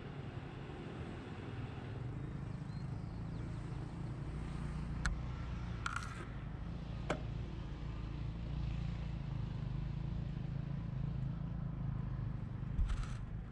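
ATV engine idling steadily while the quad sits stopped on the sand, with a few sharp clicks and a short thump near the end.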